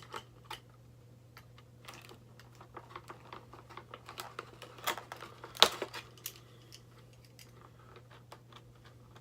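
Irregular light clicks and taps of hard plastic as an action figure is worked loose from its blister packaging, with one sharper click a little past halfway.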